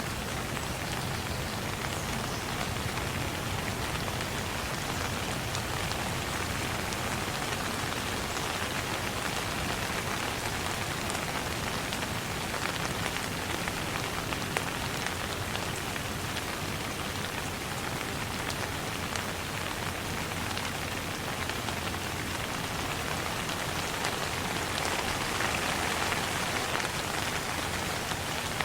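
Steady rain falling on a surface, a dense patter of drops with a slight swell near the end.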